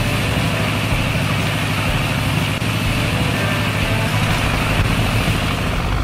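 Cartoon sound effects of a bulldozer's engine running and car-wash dryer fans blowing: a steady hiss over a low rumble.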